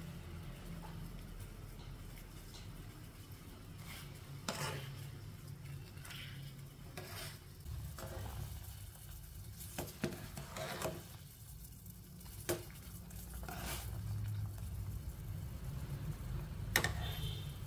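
A steel ladle stirring and scraping in an aluminium pot of boiling soup, with a few sharp clinks against the pot's side, over a low steady hum.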